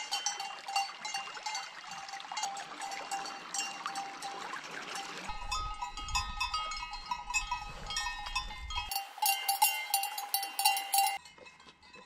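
Bells on grazing cows clanking irregularly, several bell tones ringing at once. The ringing cuts off suddenly about a second before the end.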